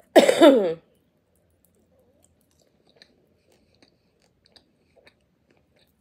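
A short vocal sound falling in pitch just after the start, then quiet chewing of food with a few faint mouth clicks.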